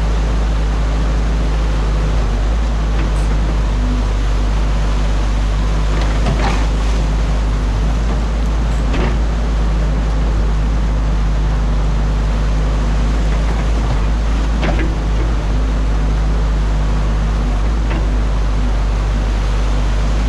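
Excavator's diesel engine running steadily, heard from the cab, over rushing water pouring through a breached beaver dam on a concrete weir. A few short knocks come as the bucket works.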